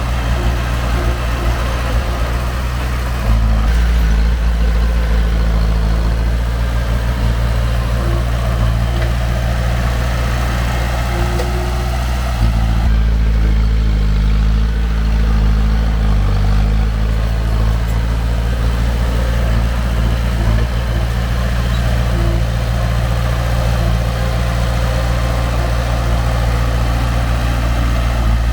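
Heavy diesel earthmoving machine's engine running steadily, its note stepping up and getting louder about three seconds in and again about twelve seconds in.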